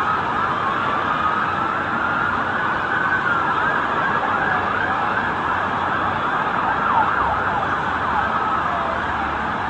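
Several emergency-vehicle sirens wailing at once, their rising and falling pitches overlapping, over a steady wash of city noise.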